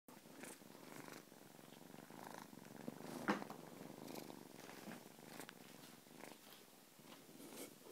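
Australian Mist kitten purring faintly and steadily close to the microphone, with fur and paws rustling against it and a sharp bump about three seconds in.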